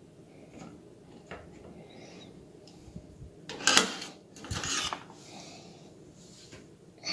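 Hard plastic handheld anemometer and a measuring stick being handled and slid across a desk: light clicks and rubs, then a louder scraping knock a little past halfway and a second, shorter scrape just after.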